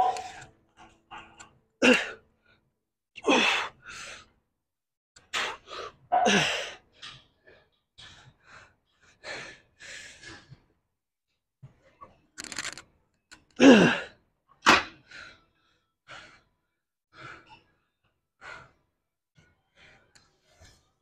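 A man's forceful exhales and strained groans, one every second or two, some sliding down in pitch, loudest about halfway through: heavy breathing from the effort of a weightlifting set.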